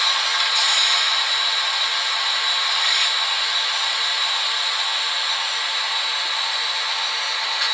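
Factory-fitted Zimo sound decoder of a Roco HO-scale SBB Ae 3/6 electric locomotive model playing a steady mechanical running noise through the model's small speaker, thin and hissy with no bass.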